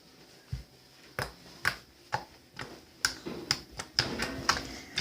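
Slime being squeezed and poked by hand, giving a string of sharp, irregularly spaced clicks and pops, about ten in all.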